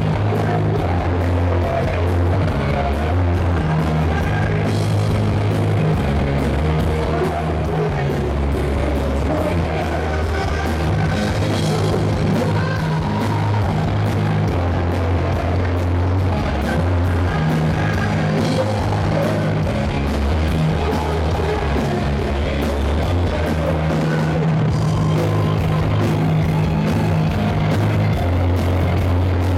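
Live rock band playing: electric guitars, bass guitar and drum kit, with a singer at the microphone.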